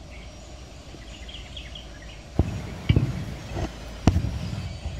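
A few short low thuds, the first about two and a half seconds in, over outdoor background noise. Faint high bird chirps come in the first couple of seconds.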